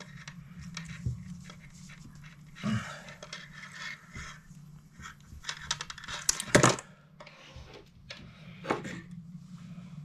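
Handling sounds of a fishing knot being pulled tight with pliers: the line creaks and rustles, with a few sharp clicks and scrapes, the loudest about two-thirds of the way in. A low steady hum sits underneath.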